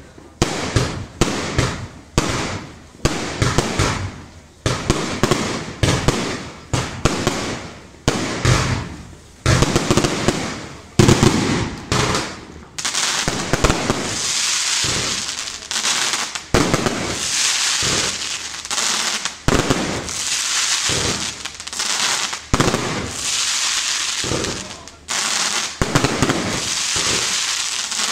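Aerial fireworks display: a quick string of shell bursts at about two bangs a second. About halfway through it thickens into dense, continuous crackling with bangs still going off.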